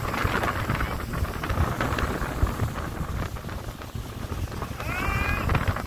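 Motorboat running at speed: a steady low engine drone under the rush of water and heavy wind buffeting the microphone.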